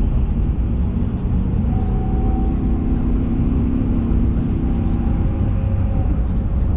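A motor vehicle driving, heard as a steady low engine and road rumble; a level engine hum rises out of it from about two seconds in and fades near the end.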